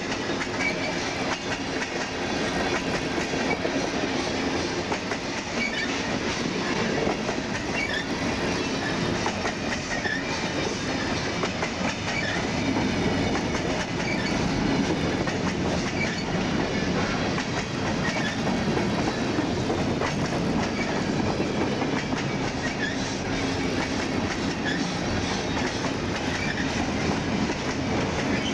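CSX freight train cars rolling past steadily, wheels clacking over the rail joints.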